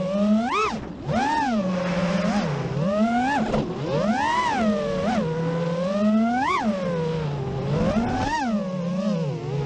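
FPV freestyle quadcopter's motors and propellers whining, the pitch swooping sharply up and down about once a second as the throttle is punched and cut through the turns.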